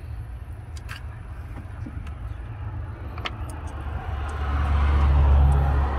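A motor vehicle running nearby: a steady low engine hum that swells louder, with added road-like noise, about four seconds in and eases off near the end. A couple of light metallic clicks come from nuts being started by hand on the throttle-cable bracket.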